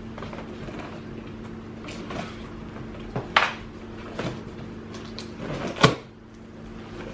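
A sewing machine's box and packaging being opened and handled: rustling and scraping, with a few sharp knocks, the loudest about six seconds in, over a steady low hum.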